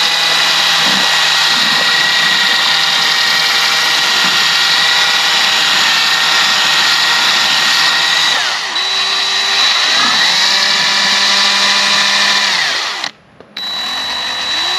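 Electric drill with a mixing paddle stirring two-part A&B pour foam, running at a steady whine. It slows and speeds up again about two-thirds of the way in, then winds down and stops. After a short gap it runs again briefly near the end.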